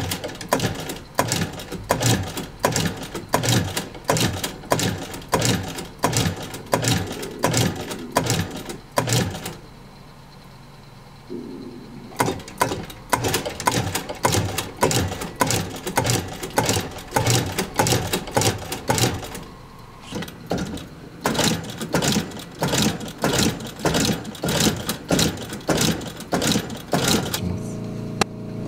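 Industrial sewing machine stitching heavy fabric, a regular run of sharp needle strokes about two or three a second. The stitching stops for a couple of seconds about a third of the way in and briefly again about two thirds in.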